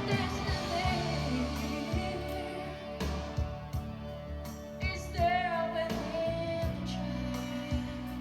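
A song playing: a singer's voice carrying a slow melody over instrumental accompaniment.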